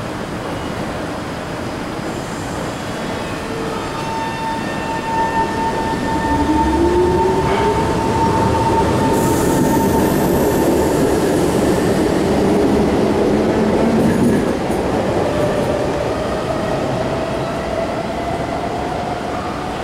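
SMRT C151 metro train pulling out of the station: electric motor whine rising in pitch as it accelerates, over wheel and track rumble, loudest in the middle as the cars pass, with a brief high wheel squeal.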